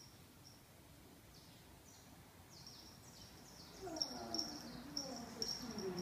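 Dogs at play, with whining, grumbling calls that slide down in pitch and begin about four seconds in. Before and through them, short high chirps repeat, sweeping downward.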